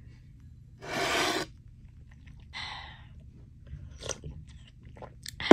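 A woman sipping and swallowing a hot ginger-lemongrass honey drink from a plastic cup: two noisy sips about a second and two and a half seconds in, then a few small clicks of swallowing near the end.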